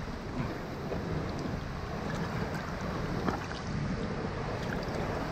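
Water sloshing and lapping against the side of a small boat around a small tarpon held in the water, over a steady rush of wind on the microphone.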